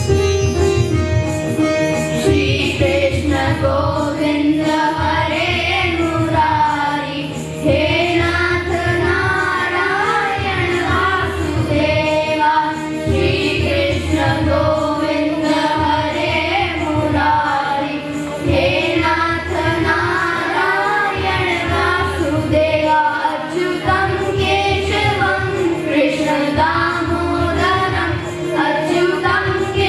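A group of children singing a Hindi devotional song to Krishna over an instrumental backing, amplified through microphones; the voices come in about two seconds in, after a short instrumental passage.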